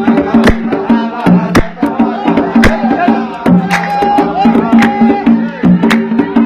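Instrumental dan music: hand drums strike a maqsum rhythm under a sustained melodic accompaniment, with a long held melody note from about halfway through.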